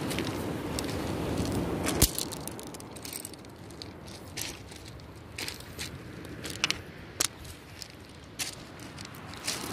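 Footsteps on a beach of smooth pebbles, the stones crunching and clacking in irregular sharp clicks, the loudest about two seconds in. A low steady rush underneath fades after about two seconds.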